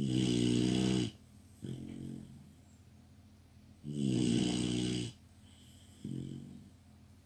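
Labrador puppy snoring in deep sleep: two loud, pitched snores, each lasting about a second and followed by a shorter, quieter one, the pattern repeating about every four seconds.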